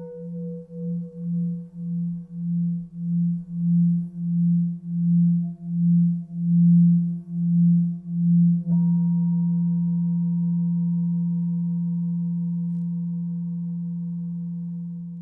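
Tibetan singing bowl ringing with a deep pulsing hum that swells, about two pulses a second. It is struck again about nine seconds in and then rings on steadily, fading near the end.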